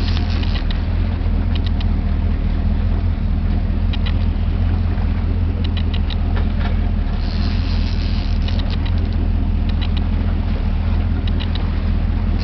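Fishing boat's engine running steadily at low trolling speed, a deep constant drone, with small clusters of short, sharp clicks every second or two.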